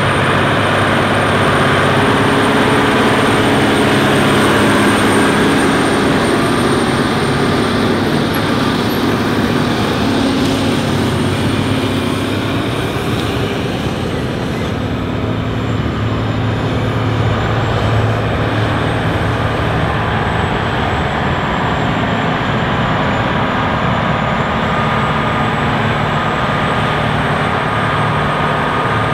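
John Deere 9330 articulated four-wheel-drive tractor, six-cylinder diesel, running steadily under heavy load while pulling a seven-shank subsoiler deep through the ground.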